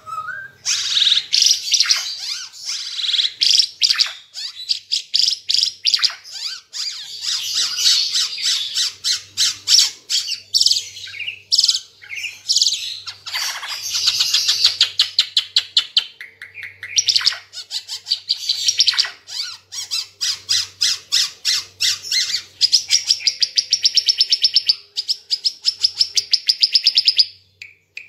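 Timor figbird (ara Timor) singing a loud, varied song of rapid chirping notes and fast trills, strung together with only brief pauses; it breaks off near the end.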